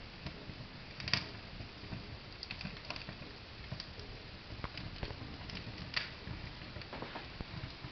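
Ethanol fireplace burning with a low steady flutter of flame, under scattered irregular soft clicks and ticks, the sharpest about a second in and again about six seconds in.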